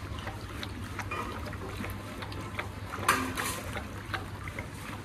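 Several dogs lapping milk from steel bowls: a busy run of small wet licks and ticks, with one louder sudden sound about three seconds in.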